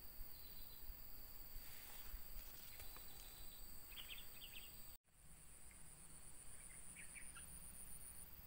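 Faint outdoor ambience of insects trilling in steady high tones, with a few short bird chirps. The sound drops out briefly about halfway through, and a different high insect tone carries on after it.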